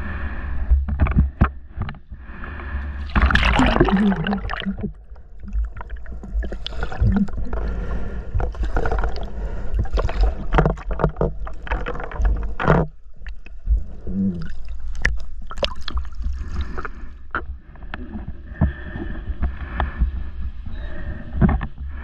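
Shallow seawater sloshing and gurgling around a camera held by a snorkeler as it goes under and back up, with a steady low rumble, scattered knocks and a louder splash about three to four seconds in.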